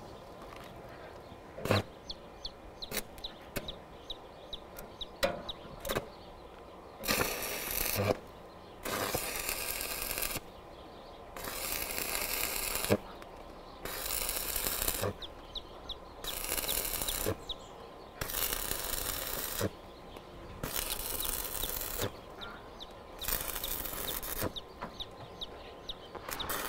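Electric arc welder crackling in a run of short welds on steel, about nine bursts of a second or so each with brief pauses between, starting about seven seconds in.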